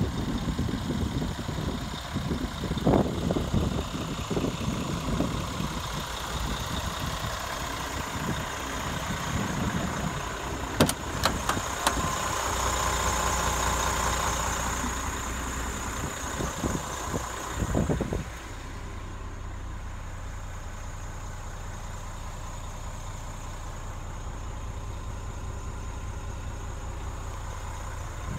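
Scania G490 tractor unit's diesel engine idling steadily, with irregular low rumbles and a few sharp clicks about eleven seconds in. From about eighteen seconds in the idle turns quieter and more muffled, heard from inside the cab.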